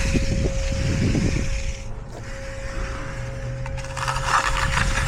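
A concrete finishing tool scraping across fresh concrete in two long passes, the first ending about two seconds in and the second starting about four seconds in, over a steady hum.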